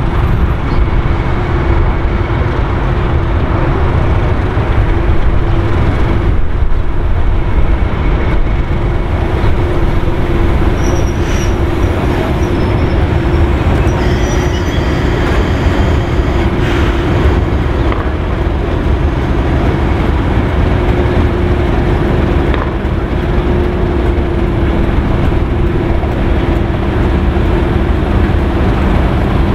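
Class 31 diesel-electric locomotive, its English Electric V12 engine running steadily under power, with the train running along the rails. A constant drone over a heavy rumble, with no break.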